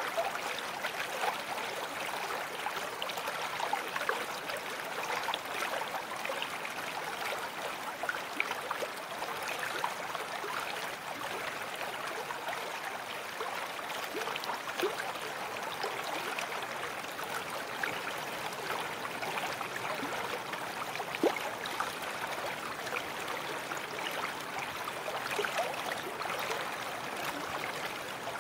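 Babbling brook: small stream running steadily, with many quick bubbling gurgles.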